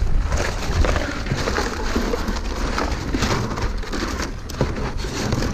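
Continuous crackling and rustling with many small clicks, as discarded shades are handled and pulled apart by hand, over a low wind rumble on the microphone.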